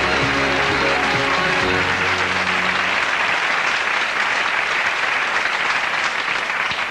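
Studio audience applauding steadily over walk-on music. The music ends about two to three seconds in, and the clapping carries on alone.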